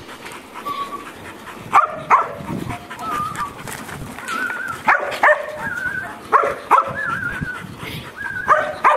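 Young kelpie working sheep, barking in quick pairs four times, with thin wavering whines in between. It is the forcing bark a yard dog uses to move sheep.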